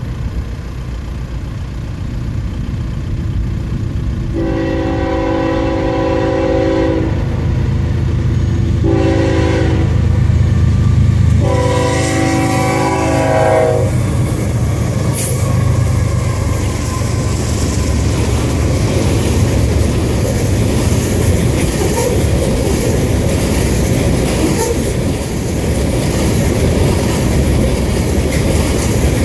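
A freight train's diesel locomotives sound the horn three times for a grade crossing: a long blast about four seconds in, a short one about nine seconds in, and another long one ending about fourteen seconds in, over the rising rumble of the engines. Then a string of loaded oil tank cars rolls past with steady wheel-and-rail clatter.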